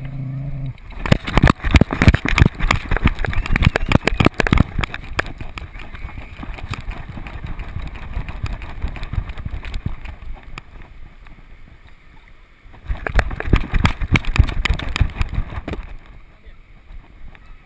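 Splashing in shallow water and knocking on a dog-mounted camera as the dog wades and runs through the shallows, in two loud bursts: one early on and another starting about 13 seconds in, with quieter sloshing between.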